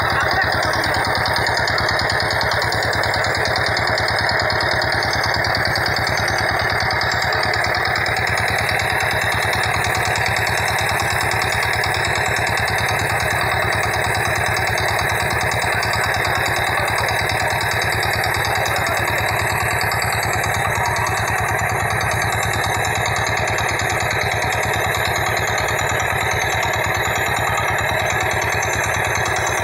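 Boat engine idling, a steady, even running sound with no change in speed.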